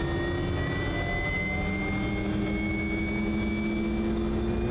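Quest Kodiak's Pratt & Whitney PT6A turboprop spooling up during engine start: a whine that rises slowly in pitch as the gas generator accelerates and the propeller begins to turn, over a low rumble.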